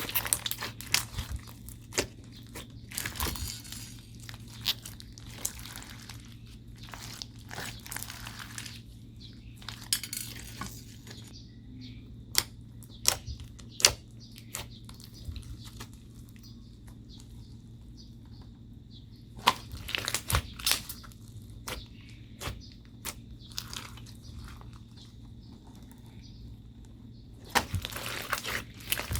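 Slime being squished, stretched and mixed by hand, making irregular sticky clicks, pops and crackly crunches in scattered bursts with quieter pauses between them. A steady low hum runs underneath.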